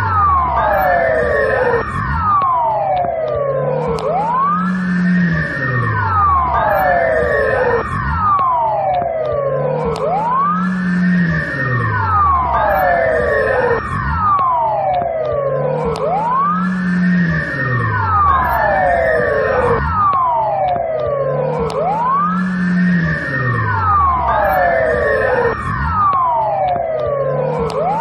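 Belarusian police car siren sounding continuously, its pitch sweeping quickly up and gliding back down in overlapping sweeps, a cycle that repeats about every two seconds.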